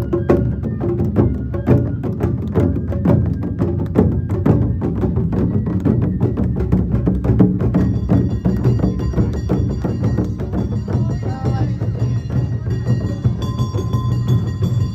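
Awa Odori festival band playing a fast, steady beat on drums and clacking percussion. Thin high held tones join in about halfway through.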